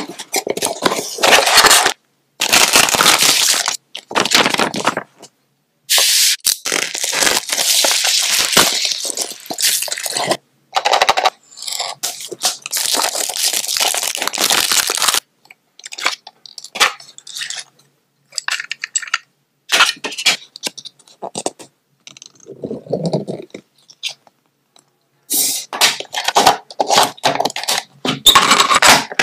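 Unboxing handling sounds: a cardboard mailer torn open and its paper packaging crinkling and scraping, then a plastic cassette case and a portable cassette player handled. They come in short runs broken by sudden silences.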